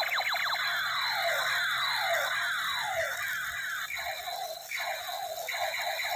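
Toy space gun's electronic laser sound effect: rapid falling zaps repeating and overlapping, turning into choppier bleeps about four seconds in.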